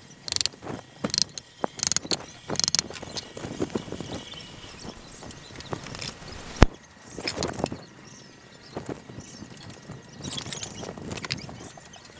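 Plywood speaker-box panels being handled and set together: irregular knocks, taps and scraping of wood against wood and the floor, with one sharp click about six and a half seconds in.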